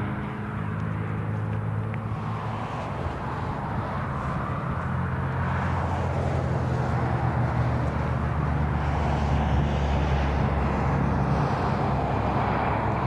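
Diesel locomotives of an approaching freight train running with a steady low engine drone, with wheel and rail noise growing as the train nears.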